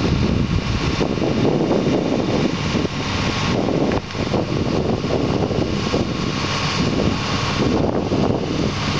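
Case excavator's diesel engine running steadily as the machine works against a building wall, with a brief dip about four seconds in.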